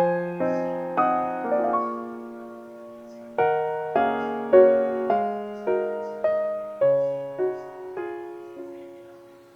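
Background music: a gentle piano tune of single struck notes that ring and die away, slowing and fading out near the end.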